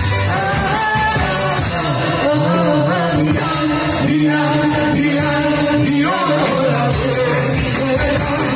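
A woman and a man singing a merawis, a Gayo Islamic devotional song, into microphones. Their voices run in long, bending melodic lines that overlap, over a steady low musical backing.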